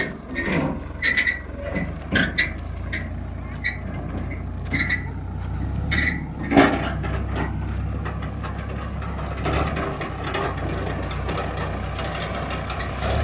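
Heavy machinery's diesel engine running steadily, with a string of short metallic clanks over the first several seconds, the loudest about six and a half seconds in.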